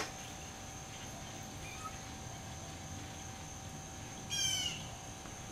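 Steady high-pitched insect drone, with one short bird call about four seconds in.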